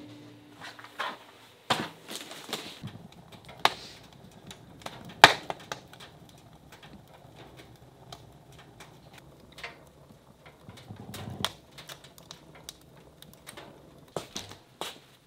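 Wood fire crackling in a wood stove's firebox: sparse, irregular sharp pops and snaps, the loudest about five seconds in.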